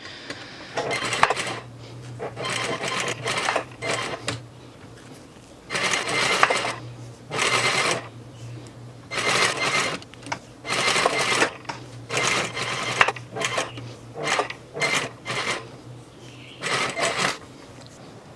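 Domestic sewing machine stitching in about a dozen short stop-start runs, each under a second, with a steady low motor hum in between.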